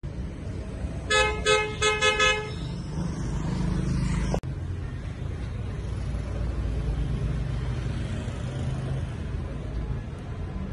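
A vehicle horn gives a quick series of about five short honks, a two-tone blare, about a second in. A steady low rumble of street traffic runs underneath and continues after it.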